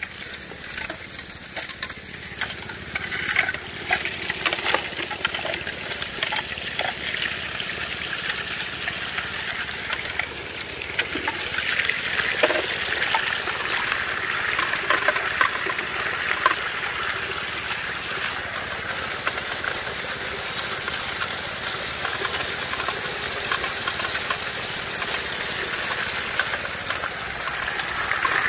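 Water spraying through a Gold Fox trommel as gravel and stones wash through it, with many small rattling clicks of rock in the steady hiss of the spray. The wash grows louder about eleven seconds in.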